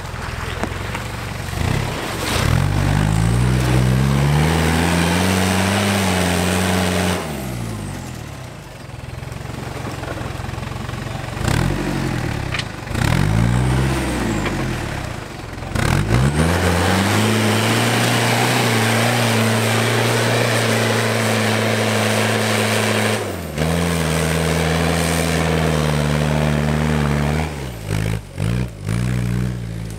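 Toyota Land Cruiser 70-series 4x4 engine revving under load as it crawls through deep ruts on a dirt trail, the pitch climbing, holding for several seconds and dropping back in repeated throttle pushes, the longest about halfway through. A broad rushing noise of tyres and dirt runs under it.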